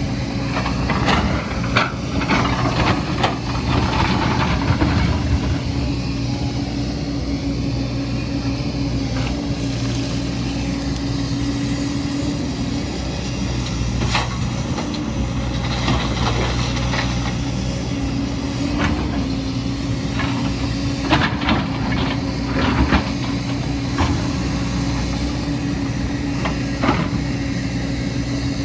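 Heavy diesel construction machinery running steadily, with scattered sharp clanks and knocks of metal and rock.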